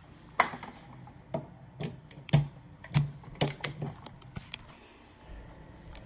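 Irregular clicks and knocks, about a dozen over four seconds, from handling a canister vacuum cleaner and its hose wand while its motor is still off.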